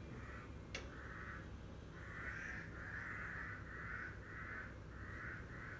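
A crow cawing over and over, a string of harsh calls about half a second each, faint in the background. A single sharp click just under a second in.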